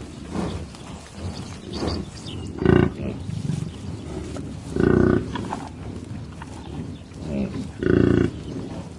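A large animal calling three times, short loud pitched calls about two to three seconds apart, over fainter animal sounds.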